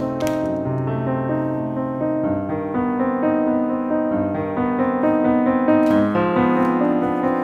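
Background music: a piano or electric piano playing a gentle melody over chords, with a brief click near the start.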